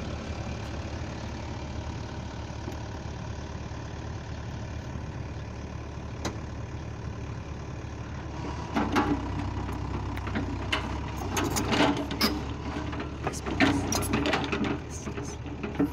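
SANY SY80-series compact excavator's diesel engine idling steadily, then, about nine seconds in, running louder as the operator works the boom and bucket, with repeated knocks and scrapes as the bucket digs into the soil.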